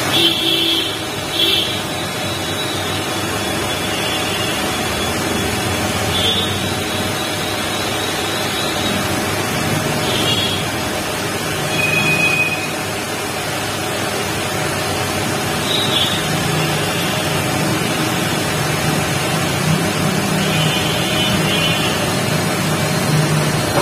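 Steady background noise, a hiss and rumble at an even level throughout, with a few faint short high tones here and there.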